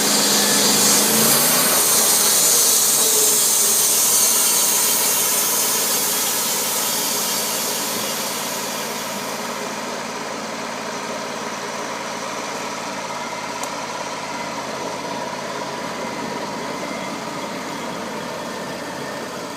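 Wood-Mizer LT35 band sawmill running, its blade cutting through a log with a loud hiss over the gas engine. About nine seconds in the cut ends, the hiss falls away, and the engine keeps running steadily and more quietly.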